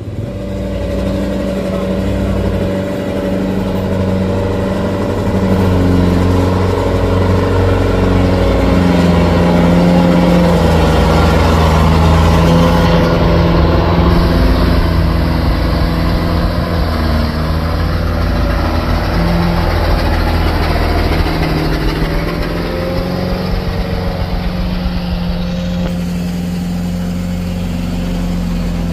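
Heavy diesel engine running steadily, its note rising and falling a little, loudest around the middle and easing off somewhat in the second half.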